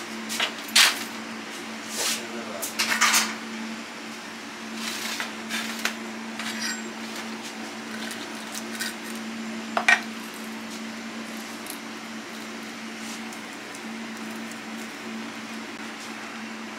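Metal clinks and knocks of a wire grill basket and a cleaver against a copper tray as a grilled fish is turned out and split open. The clinks are sharpest and most frequent in the first three seconds, with one more sharp clink about ten seconds in, over a steady low hum.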